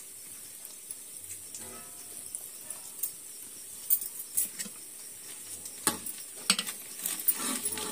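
Rice-flour and jaggery rotis deep-frying in a kadhai of hot oil, a steady sizzle. A slotted metal ladle clinks against the pan several times in the second half.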